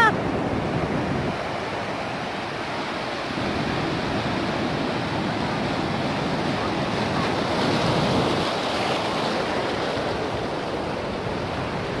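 Sea waves breaking and washing up over sand and rocks at the shoreline: a continuous rushing of surf that swells about eight seconds in.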